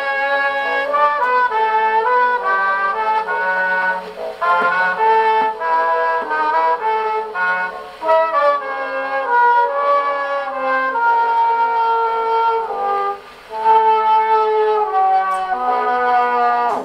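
HMV 102 portable wind-up gramophone playing a 78 rpm record of brass-led music through its built-in acoustic horn, running on its repaired clockwork spring motor. The music stops suddenly at the very end.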